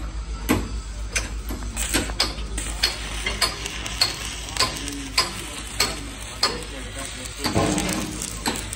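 Metalwork on an excavator bucket: sharp strikes come about one every half second to second over a steady crackling hiss. A denser, louder clatter comes near the end.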